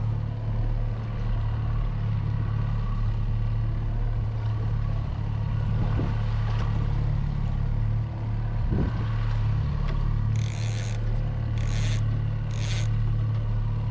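A boat motor running at a steady low hum. Near the end come three short scraping sounds, each well under a second.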